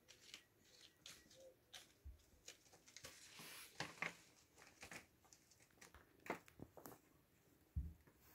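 Faint rustling and scattered soft clicks, with a short crinkly hiss about three seconds in: kittens shifting on a plastic bag and cushions while the phone is handled.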